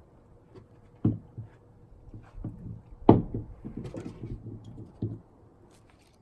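A few hard knocks and thuds, the loudest about three seconds in, with light clattering between, as of things being handled and set down.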